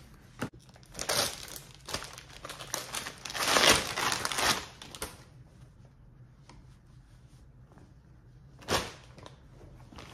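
Plastic packaging crinkling and rustling as a product is handled and unwrapped, loudest about three to four seconds in, with one short crinkle again near the end.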